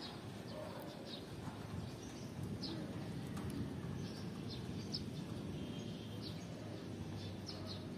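Outdoor ambience: small birds chirping with short, scattered high chirps over a steady low background noise.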